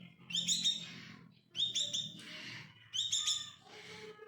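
A songbird singing short, repeated phrases, about three of them, each a couple of bright chirps followed by a raspier chattering trill.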